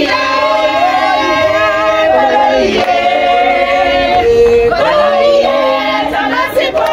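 A group of people singing together, several voices holding long notes.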